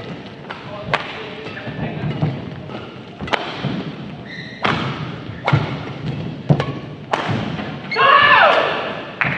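Badminton racket strikes on a shuttlecock during a rally: sharp hits about every second, with a short high squeak about halfway. Near the end a loud cry with falling pitch.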